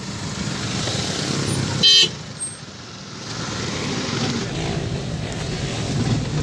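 Heavy road traffic: steady engine and traffic noise, with one short, loud car horn blast about two seconds in.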